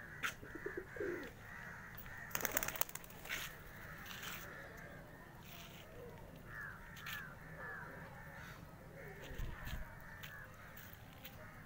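Domestic pigeons cooing briefly near the start, while other birds give harsh, repeated calls throughout. A short burst of clattering comes about two and a half seconds in.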